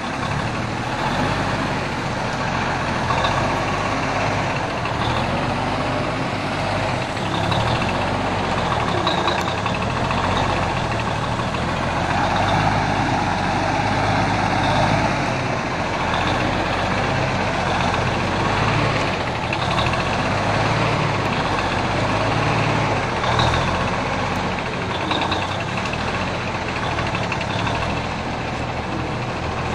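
Heavy truck's diesel engine running steadily, swelling louder for a few seconds in the middle. Short, faint high chirps sound now and then over it.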